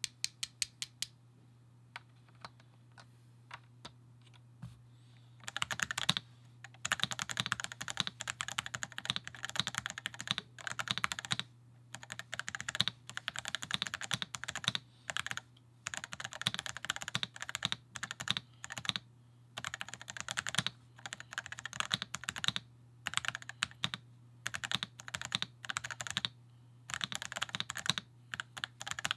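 Typing on a Melgeek Pixel gasket-mounted mechanical keyboard with smooth red linear switches: a few isolated key presses at first, then fast continuous typing from about five seconds in, in bursts broken by short pauses. A steady low hum runs underneath.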